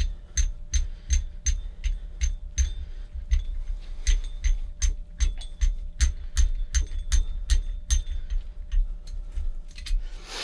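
Ratchet spanner clicking in quick, uneven runs of sharp ticks, about three or four a second, as it winds a lock nut off a threaded bar. The nut's locking insert stops it spinning off by hand, so it has to be ratcheted all the way.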